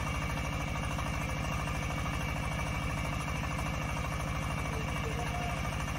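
Engine of a DH150 portable water well drilling rig running steadily, with a fast, even beat.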